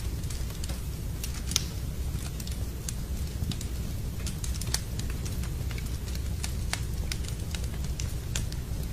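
Fireplace wood fire crackling, with irregular sharp pops, several a second, over a steady low rumble.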